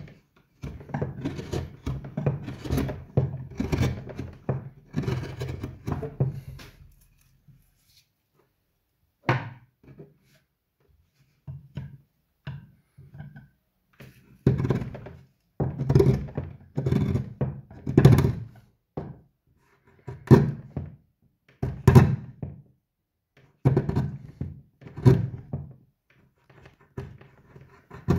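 Hand-pushed wood-carving gouge and chisel slicing curls out of a wooden bowl: a run of quick scraping cuts, a pause of a few seconds about a quarter of the way in, then separate cuts about one a second, each with a dull thunk.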